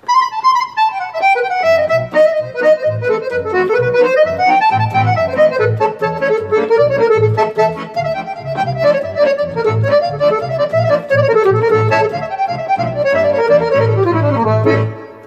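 Roland FR4X digital accordion playing a tune: a moving melody on the right-hand keys over short, regularly repeated bass notes from the left-hand buttons. The music starts at once and stops shortly before the end.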